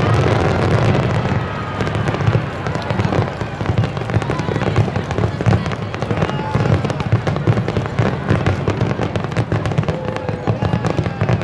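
Large aerial fireworks shells bursting in rapid succession: a dense barrage of bangs and crackling from many shells going off together, over a low rumble.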